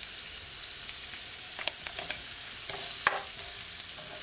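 Carrot sticks sizzling in a little hot oil in a nonstick frying pan, a steady hiss, with a few sharp clicks of a spoon stirring them against the pan, the loudest about three seconds in.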